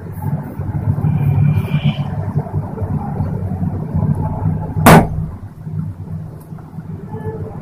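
Small steel tadka pan being swirled over a gas-stove grate, with a steady low rumble and one sharp knock about five seconds in.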